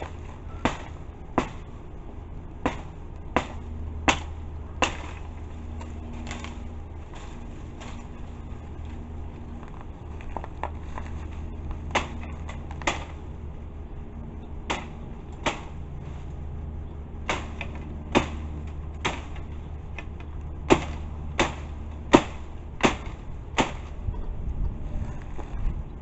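A homemade axe ground from scrap metal chopping: sharp single strikes, often about one every 0.7 seconds in runs of several with short pauses between the runs, over a steady low hum.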